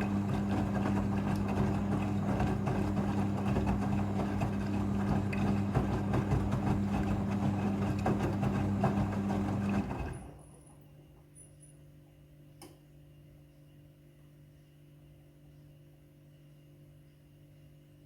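Midea front-loading washing machine running with a loud, steady motor hum and rushing noise. About ten seconds in this cuts off suddenly to a faint low hum, with a single click a little later.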